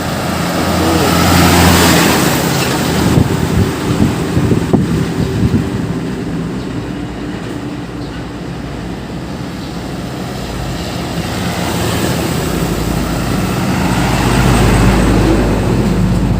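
Heavy trucks driving past on a road. Engine drone and tyre noise swell as one passes about two seconds in and then fade. A second truck with a deeper rumble builds up near the end.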